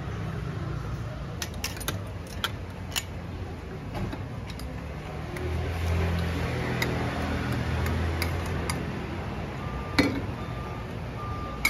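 Metal cooking utensils clinking against steel pots and a mesh strainer basket: a string of light clinks in the first few seconds and one sharp knock about ten seconds in. Under them runs a steady hum of street traffic that swells for a few seconds in the middle, and a repeating beep starts near the end.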